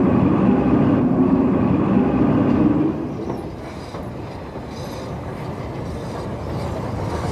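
A train running along the track, loud for the first three seconds, then dropping to a quieter, steady running sound.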